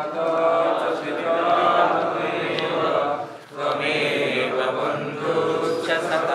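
Voices chanting a Sanskrit devotional mantra in long, sustained tones, with a short breath pause about three and a half seconds in.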